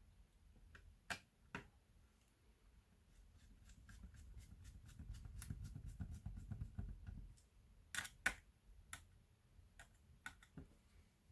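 Scattered clicks and taps of small laptop parts and tools being handled, with a low rubbing rumble in the middle and a few sharper clicks near the end.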